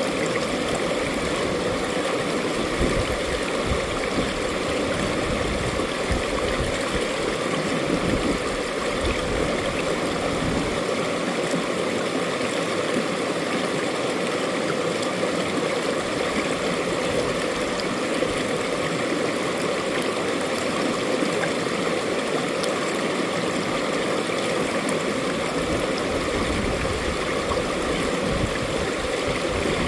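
Mountain valley stream rushing and gurgling over rocks, a steady, even water noise.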